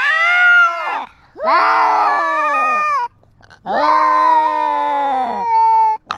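Domestic cat meowing loudly and insistently, up close: three long, drawn-out meows, each rising and then falling away in pitch, with short pauses between.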